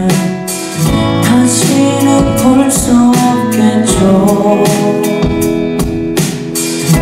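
A slow ballad performed live: music with a steady beat, a young male singer's voice over it.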